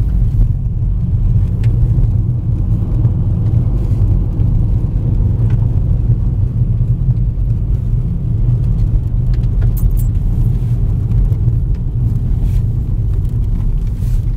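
Steady low rumble of a car driving on a gravel road, heard inside the cabin: tyre and road noise with the engine underneath, with a few faint ticks scattered through.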